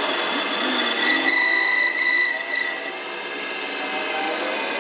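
Metal lathe turning the end of a steel axle shaft, the tool bit cutting steadily and throwing off curling chips. A high-pitched whine from the cut comes in about a second in and fades after another second or so.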